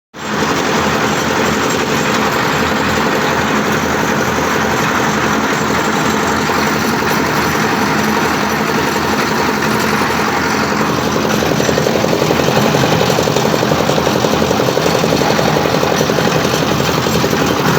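Single-cylinder 5 hp diesel engine running steadily with a fast, even beat, just reassembled with new piston rings. It gets slightly louder about two-thirds of the way through.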